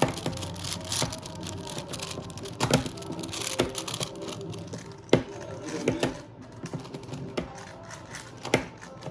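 Plastic Rubik's cube being scrambled by hand: rapid, irregular clicking as the layers are turned, with a few louder snaps.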